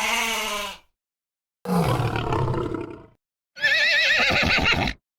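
Three separate dubbed animal-call sound effects, each cut off abruptly into dead silence. The first is short, the second is lower and longer, and the third is a high, quavering call a little over a second long.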